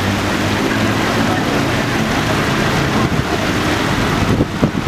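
Steady rushing water mixed with wind blowing across the microphone, with a low hum underneath; near the end the wind buffets unevenly.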